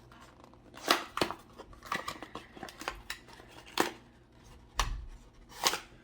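Small yo-yo boxes and packaging being handled by hand: a handful of sharp clicks and taps a second or so apart, with a soft thump just before five seconds.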